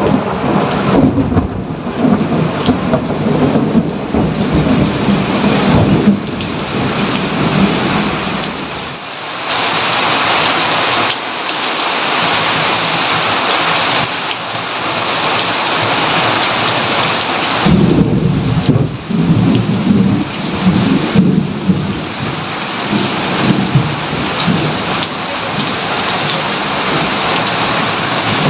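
Steady heavy rain with rolling thunder. One long rumble fills the first few seconds and dies away, and a second rumble builds a little past halfway and fades again.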